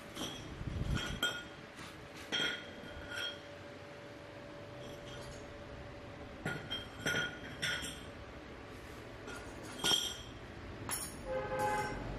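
Sharp clinks, several in quick succession every few seconds, each with a short ringing tone like something hard tapping metal or glass. A brief pitched sound follows near the end.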